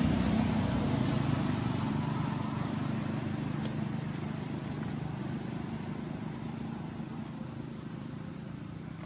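Low engine hum of a distant motor vehicle, fading away steadily, over a thin, steady, high-pitched insect drone.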